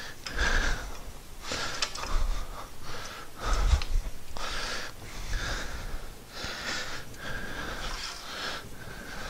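A man breathing hard in noisy breaths about a second apart, from the effort of pushing a 93-pound concrete-filled counterweight box into place on its mounting bars.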